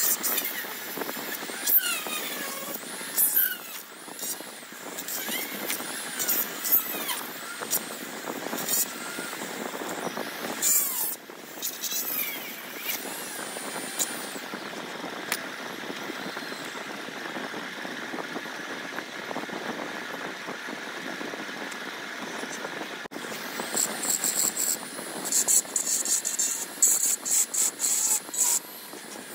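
A steady hum of distant road traffic, over which a hand-held pointed steel tool scrapes and clicks on the aluminium cylinder of a Yamaha RX135 two-stroke engine. The scraping comes in short bursts, quickening into a rapid run of scratches near the end.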